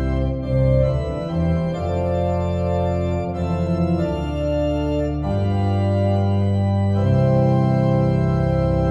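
Organ music: sustained chords held and changing every second or two, with a slight wavering in level.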